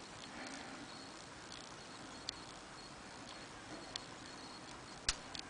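Faint scattered clicks of a lock pick working the pin stack of a 4-pin Master 40 mm padlock, with a sharper click about five seconds in.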